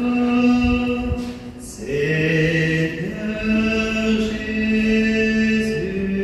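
Chanted singing from a church service, voices holding long notes that move to new pitches about two seconds in and again near the end.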